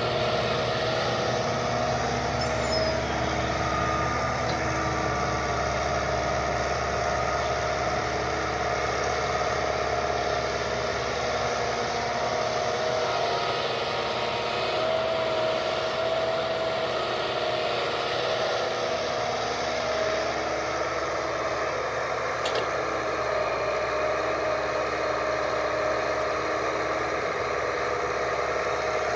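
Kobelco SK120 Mark 3 excavator's diesel engine and hydraulics running steadily while it digs and loads soil, with a steady whine over the engine.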